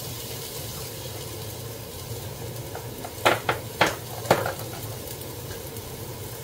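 Sliced zucchini and onion sizzling steadily in oil in a frying pan, with four sharp clicks about three to four seconds in.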